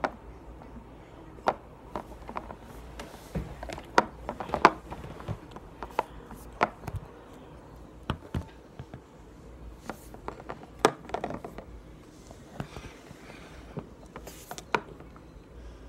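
Slime being worked by hand in a container of warm water: irregular small clicks, pops and knocks with soft rubbing in between.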